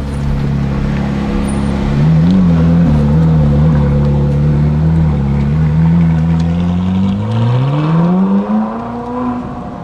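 A car engine running at low revs, with a couple of quick throttle blips a couple of seconds in. It then accelerates with a steadily rising pitch in the last few seconds.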